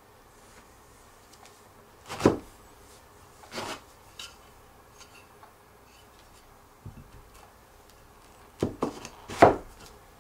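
Wooden chair parts knocking and rubbing as they are handled and fitted: a couple of short knocks about two seconds in, a soft thump later, and a quick cluster of louder knocks near the end.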